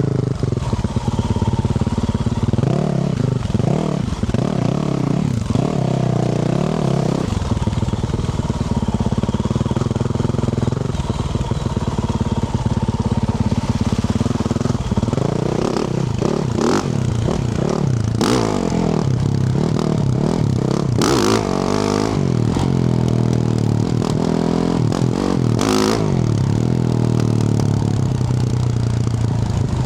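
2024 Yamaha YZ450F's single-cylinder four-stroke engine through a Yoshimura RS-12 exhaust, on the move, revving up and easing off again and again. Several sharp clattering knocks come in the second half.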